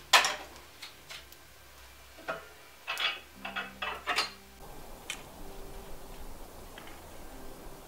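A log knocking into a wood-stove firebox, then a run of metal clanks and clicks as the iron firebox door is swung shut and latched. After that a steady outdoor hiss takes over.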